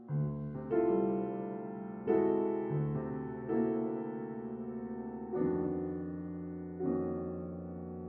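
Fazioli grand piano playing a slow passage of contemporary classical music: about seven notes and chords struck at uneven intervals, each left to ring and fade.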